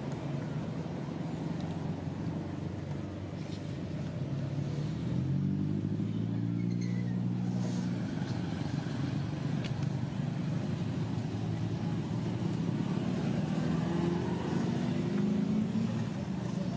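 A motor engine running steadily, its pitch shifting up and down a few times as it speeds up and slows.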